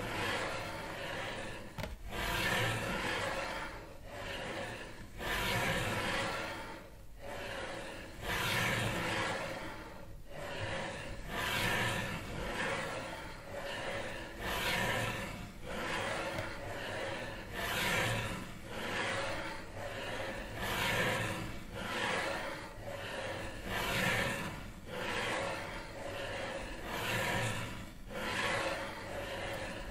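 Swells of rushing noise, each rising and fading over about three seconds, repeating evenly, with faint steady tones beneath.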